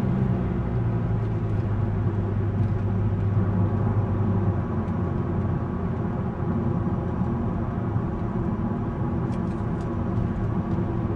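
Car interior noise while driving: a steady engine and road rumble heard from inside the cabin, its low hum easing about four and a half seconds in.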